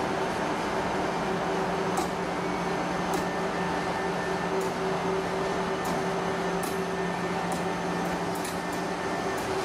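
SNCF BB 36000 electric locomotive standing with its cooling blowers and transformer running: a steady hum with several fixed tones that neither rise nor fall, with a few faint irregular clicks.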